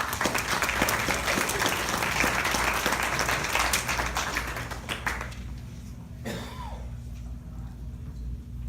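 Audience applauding for about five seconds, then dying away.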